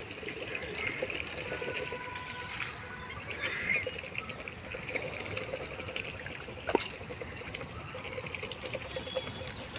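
Domestic geese dabbling their bills in a shallow dish of water and grain: a steady run of small wet clicks and splashes, with one sharper click about seven seconds in. A steady high hiss lies behind.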